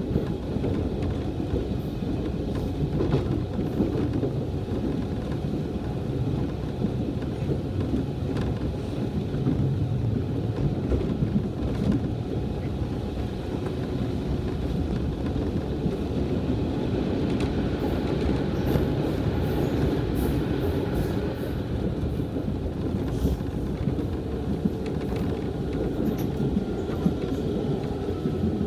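Nishitetsu Kaizuka Line electric train running, heard from inside the carriage: a steady rumble of wheels on rail. A faint whine joins in over the second half.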